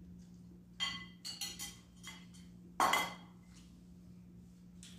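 Spoons clinking and scraping against plates and bowls while eating: a few light clinks about a second in, then a louder ringing clink about three seconds in.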